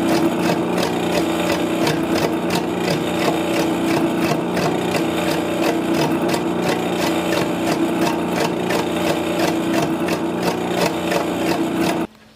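Metal lathe turning a 16-inch block of wood: a steady motor hum under the tool bit scraping and chipping at the spinning wood, with a fast, even knock from the interrupted cut. The sound cuts off suddenly near the end.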